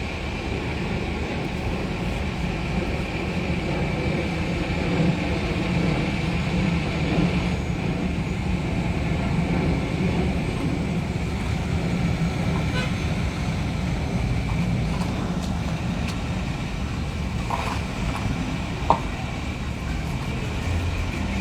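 Street traffic with heavy vehicle engines running steadily: a low rumble with a thin steady high whine over it, and one short sharp knock near the end.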